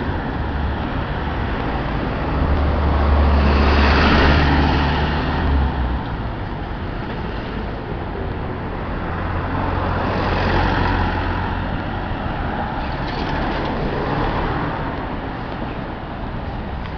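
Road traffic on a busy street: cars and trucks passing close by. It swells loudest as vehicles go past about four and ten seconds in, with a low engine hum from about two to six seconds in.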